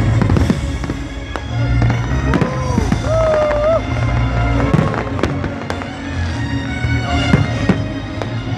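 New Year's fireworks going off in a dense run of bangs and crackles, with a few wavering whistle-like tones about two to four seconds in.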